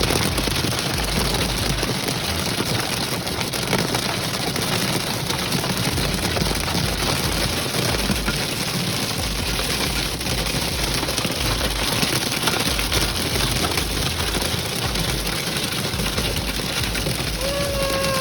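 Heavy rain mixed with hail falling on a vehicle: a dense, steady hiss of many small impacts over a wavering low rumble.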